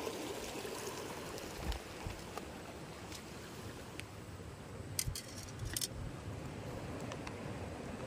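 Steady wash of water along a rocky shore, with two short clusters of sharp clicks about five and six seconds in.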